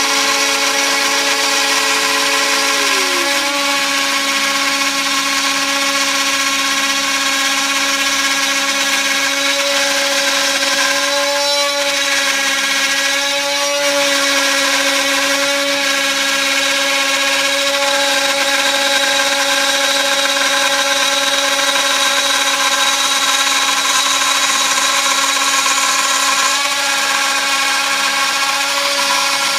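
TTA 3020 desktop CNC router milling wood flooring: the spindle runs with a steady whine over the noise of the bit cutting the wood. About three seconds in, one motor tone drops in pitch as the machine's feed changes.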